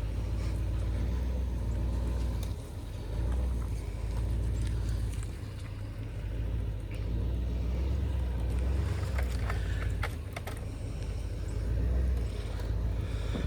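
Pickup truck engine running at low speed while backing a trailer through mud, a steady low rumble that swells and eases. A few sharp clicks come a little past the middle.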